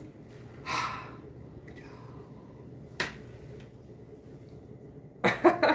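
Handling noise from a leather handbag with metal hardware: a brief soft rustle near the start and a single sharp click about three seconds in, over quiet room tone.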